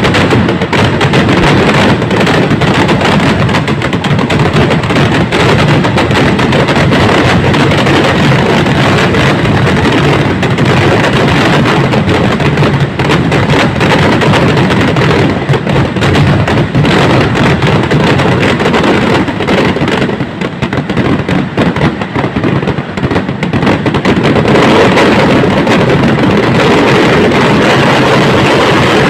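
Fireworks going off in a dense, continuous barrage of rapid firecracker bursts, very loud throughout, with a brief slackening about two-thirds of the way through.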